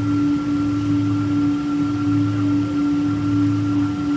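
Cabin sound of a Boeing 777-200 moving on the ground with its jet engines at idle: a steady whine, a low hum that swells and fades about once a second, and an even hiss of cabin air.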